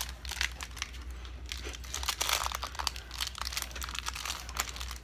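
Packaging crinkling and rustling in irregular crackles as an open subscription box is unpacked and a plush toy is handled over it.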